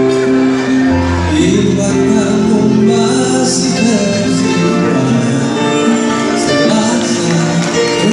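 Live music over a PA system: a man singing into a microphone over sustained electronic keyboard chords, his voice coming in about a second in.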